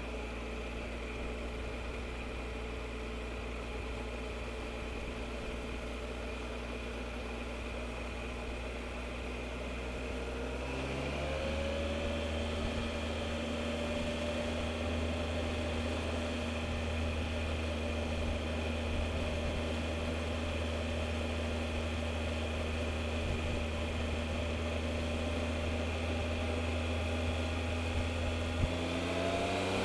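Triumph Explorer motorcycle's three-cylinder engine running steadily under way. About a third of the way in its note rises and holds at a higher pitch, and near the end the revs climb again.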